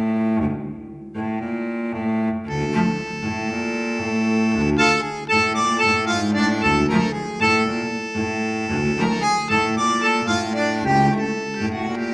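Background music: a melody over sustained chords, with no balloon pop in it.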